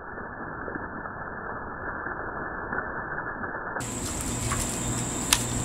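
Slowed-down sound of a shot plastic water jug emptying: a muffled, low rushing of water that slowly grows louder. About four seconds in it switches to real-time outdoor sound, with a steady high-pitched drone and two sharp clicks near the end.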